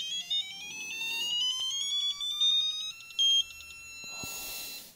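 Icon 1/2-inch drive digital torque wrench beeping as it is pulled up toward its 150 ft-lb setting: a fast run of electronic beeps rising steadily in pitch, then a steady tone from about three seconds in as the target torque is reached.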